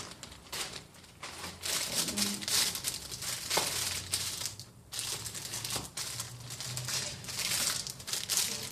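Packaging crinkling and rustling on and off as it is handled.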